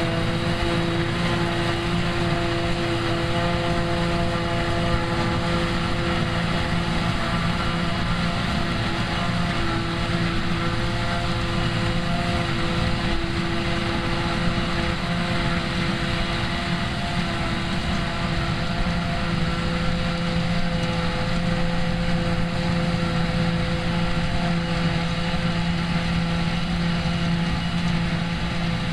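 New Holland tractors and a trailed JF forage harvester at work, picking up and chopping grass from a windrow and blowing it into a silage trailer. A steady drone of engines and machinery with a few held humming tones that do not change.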